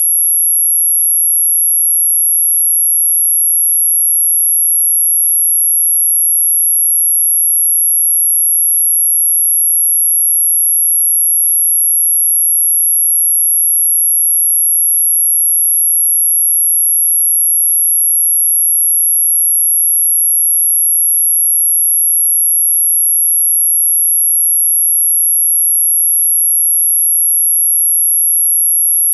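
Synthetic anti-mosquito repellent tone: a single, very high-pitched, steady pure tone that does not waver.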